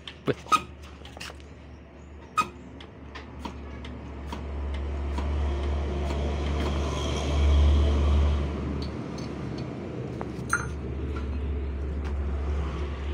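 Hand-lever diesel injector nozzle tester being pumped: sharp metallic clicks from the lever and fittings in the first few seconds, then a steady low hum with a hiss that swells to a peak in the middle and stays on as the nozzle is brought up to its opening pressure.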